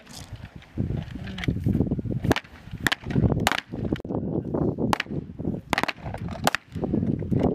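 Semi-automatic pistol firing single shots, about six sharp cracks roughly a second apart.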